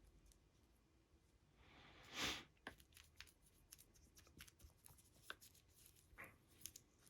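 Faint handling noises of small modelling work: a short rustle swelling and peaking about two seconds in, followed by scattered light clicks and taps.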